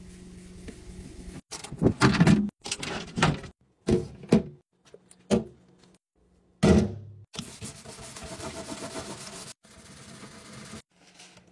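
Clear plastic refrigerator drawers and shelves handled, giving a run of clunks and knocks over a few seconds, then a steady rush of tap water over a plastic fridge bin in a steel sink as it is scrubbed with a sponge.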